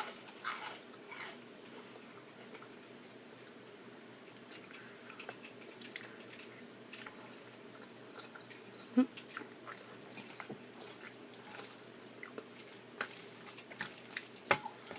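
A person eating with a close microphone: quiet wet chewing and mouth sounds with scattered small clicks, and a louder smack about nine seconds in and another near the end.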